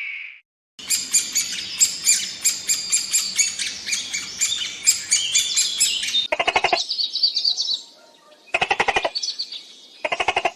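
Small birds chirping rapidly in a dense, high run of chirps, then three short, fast rattling trills in the second half.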